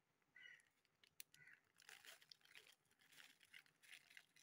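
Faint crinkling of a foil spice packet as masala powder is shaken out of it onto minced beef, with a few light ticks.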